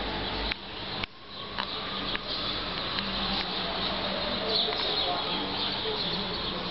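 Outdoor city ambience: a steady background hum and hiss with faint bird chirps, and a few sharp clicks in the first two seconds.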